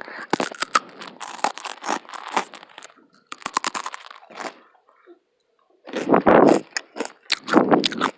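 Close-up crunchy chewing of Matdongsan, a Korean fried dough snack coated in peanuts and syrup: rapid crackling bites, with heavier deeper crunches near the end.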